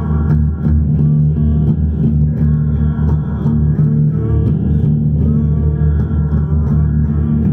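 Electric guitar playing a repeating phrase of bent notes over steady, sustained low notes.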